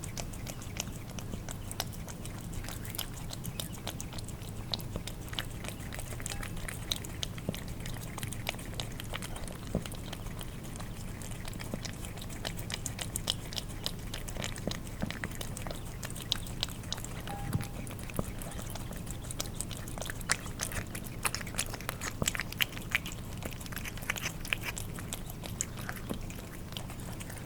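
Cats licking and chewing wet food: a dense, irregular run of small wet smacks and clicks from tongues and jaws, over a low steady hum.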